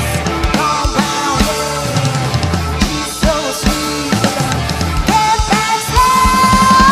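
Live rock band playing an instrumental passage without vocals: a steady drum-kit beat with bass and electric guitar, and a held, rising guitar note near the end.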